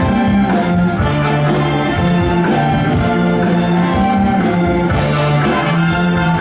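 Navy band playing music: held notes from several instruments over drum strokes.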